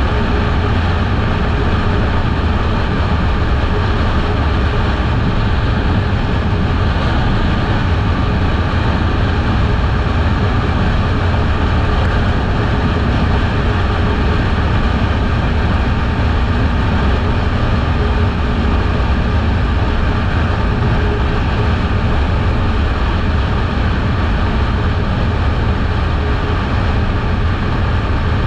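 Kawasaki Eliminator 500 parallel-twin motorcycle riding at a steady speed: the engine runs evenly, without revving up or down, under heavy rushing wind noise on the camera microphone.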